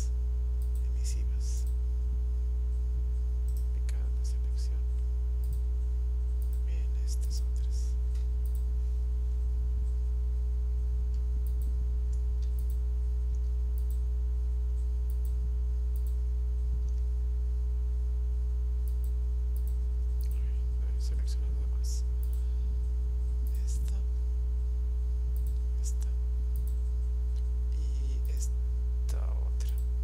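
Steady electrical mains hum with a ladder of overtones, picked up by the recording microphone, with scattered faint computer mouse clicks over it.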